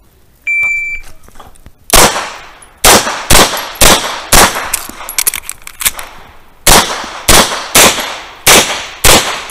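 A shot timer beeps once, followed by rapid pistol fire from a Tanfoglio Limited Pro: about fourteen shots, roughly half a second apart, with a brief pause partway through.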